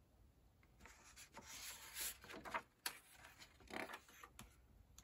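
A page of a hardcover picture book being turned by hand: faint, soft paper rustles and rubs spread over a few seconds, with a small tick about three seconds in.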